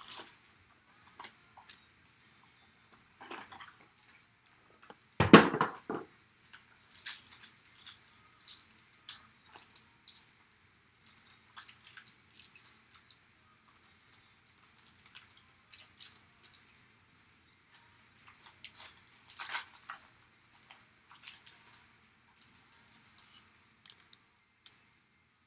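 Plastic wrapping and a sealed trading-card pack crinkling and tearing as they are pulled open by hand, in short scattered rustles, with the cardboard box being handled. A loud thump about five seconds in and a louder rustle near twenty seconds in.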